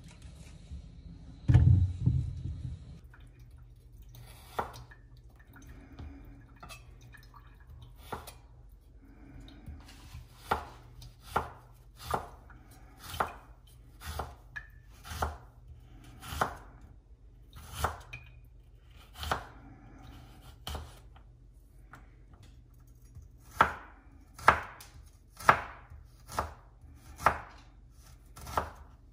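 A heavy thump about a second and a half in, then a long series of short, sharp knocks about once a second, loudest near the end.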